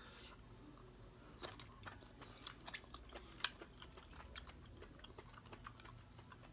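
Quiet chewing of chewy steamed king oyster mushrooms, with small irregular mouth clicks throughout.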